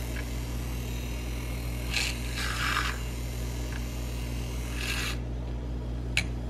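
Handheld milk frother whisking collagen powder into a mug of coffee, over a steady low hum, with a few short scraping sounds. A sharp click comes near the end.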